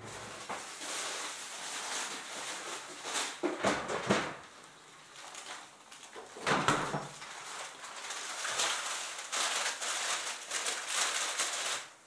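Crinkly rustling and handling of groceries, with louder bumps about three to four seconds in and again about six and a half seconds in.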